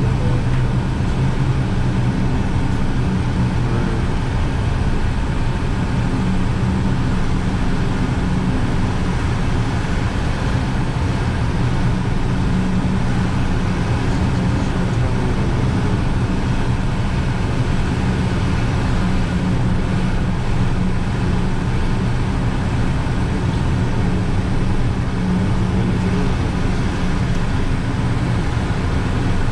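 Cockpit noise of a Cessna Citation business jet in flight: a steady drone of its jet engines and rushing airflow, with a constant low hum underneath.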